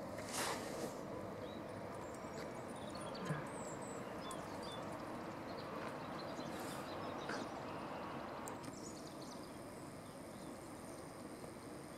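Outdoor ambience: a steady background hiss with faint scattered bird chirps, a brief rushing noise about half a second in and a single click a little after three seconds.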